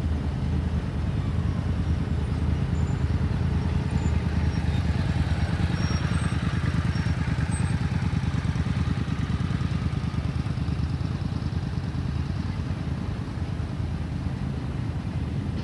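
A road vehicle's engine idling steadily with a low rumble.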